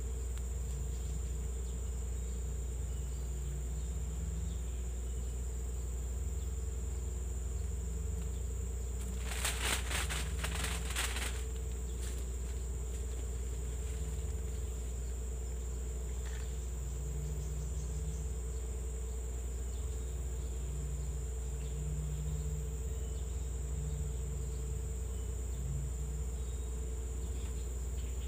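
Steady chorus of insects in tropical swamp forest, a continuous high-pitched drone. About ten seconds in, a burst of rapid clicking lasts about two seconds.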